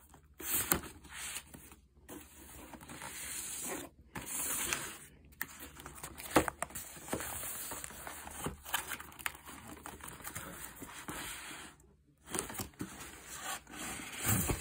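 Corrugated cardboard shipping box being torn and pulled away from a large hardcover book: rustling tears and scrapes in stretches with short pauses, and a few sharp snaps.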